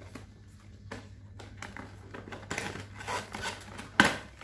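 Cardboard packaging of an action camera box being handled and pried open by hand: rustling and scraping that grows busier, with a sharp tap about four seconds in.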